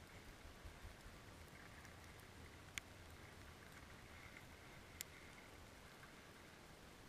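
Near-silent underwater ambience: a faint low hiss and light crackle, broken by two sharp clicks a little over two seconds apart.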